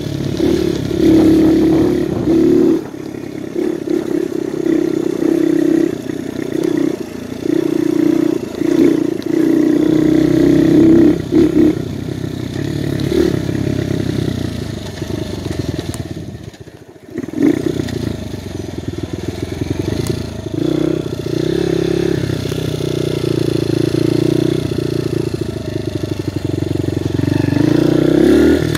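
Viper 150cc dirt bike's single-cylinder engine running under way, its note rising and falling with the throttle and gear changes. It briefly drops away about two-thirds through, then rises in pitch as the bike revs up near the end.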